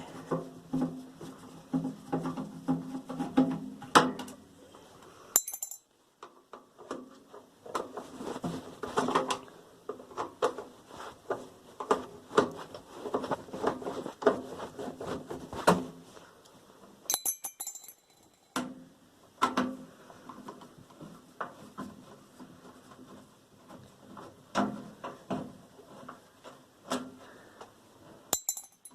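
Screwdriver and loose screws clinking and tapping on a microwave's sheet-metal casing as it is unscrewed and taken apart: irregular small metallic clicks and knocks, broken by two short pauses.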